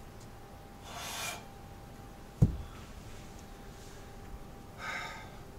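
A heavy iron kettlebell drops onto grassy ground with one loud, dull thud about two and a half seconds in, the loudest sound here. Before it, about a second in, comes a sharp exhale from the lifter, and another hard breath near the end as he recovers.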